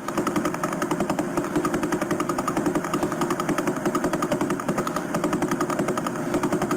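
Space data converted to sound: a fast, even train of buzzy pulses, many to the second, over a steady hum, holding unchanged throughout.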